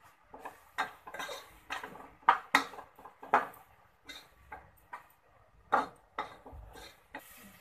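A metal spoon scraping and clinking against the inside of a metal pressure cooker as a thick onion-tomato masala is stirred and sautéed, in irregular strokes with a few sharper knocks.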